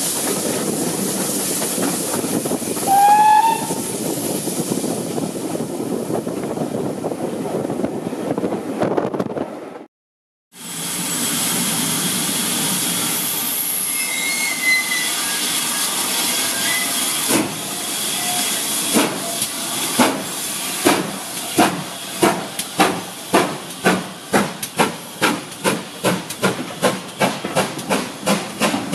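A steam train heard from on board: steady running noise, with one short rising whistle from the GWR 2-8-0 No. 3802 about three seconds in. After a break, the same locomotive pulls out of a station with hissing steam. From about halfway the coaches roll past, their wheels clicking over the rail joints in a quickening rhythm.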